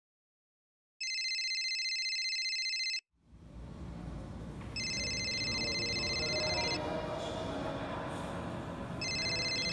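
An electronic ringing tone sounding three times, each ring about two seconds long with about two seconds between. The first ring is heard on its own; the later two sound over the steady background noise of a small shop.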